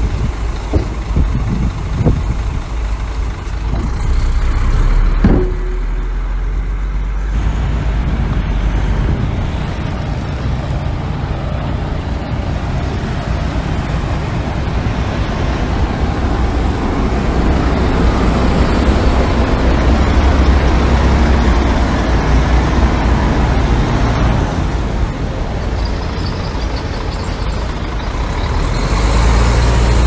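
Heavy diesel earthmoving machinery running and working, with the engine noise swelling and easing, and a few sharp knocks in the first few seconds.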